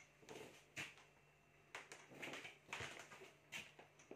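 Near silence: a few faint scattered rustles and a soft click over a low steady hum, as a handheld phone is moved.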